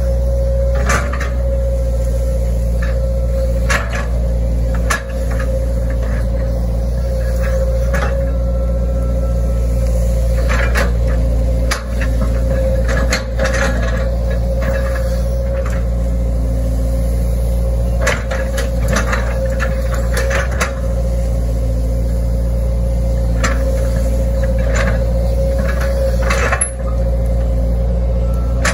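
Hitachi ZX110 excavator's diesel engine running steadily under load, with a constant tone over the drone, as the bucket works the grassy bank; frequent sharp knocks and clanks of metal break in throughout.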